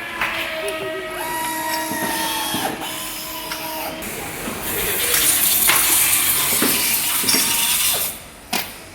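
Assembly-line machinery in a door-closer factory: a few seconds of steady mechanical whining at several pitches, then a louder hissing rush for about three seconds that cuts off near the end.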